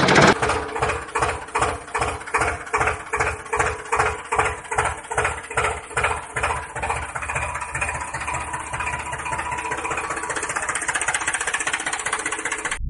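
Tractor engine chugging in even beats of about three a second. The beats quicken and blur into a steady run in the second half, then cut off suddenly.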